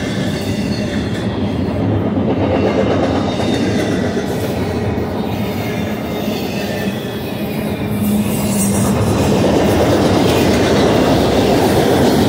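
Double-stack intermodal well cars rolling past close by: a steady rumble and clatter of steel wheels on rail, growing louder about eight seconds in.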